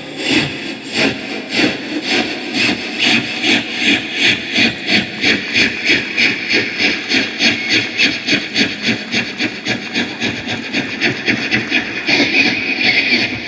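A person imitating a steam locomotive with the mouth: rhythmic breathy chuffs that speed up steadily, from about two a second to about four a second, like an engine gathering speed, turning denser and hissier near the end.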